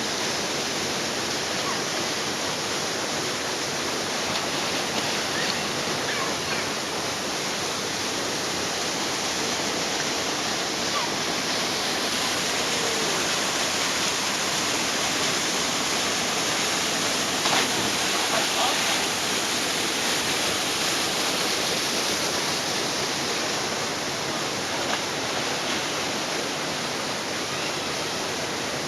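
Steady rushing of a waterfall, with faint voices now and then.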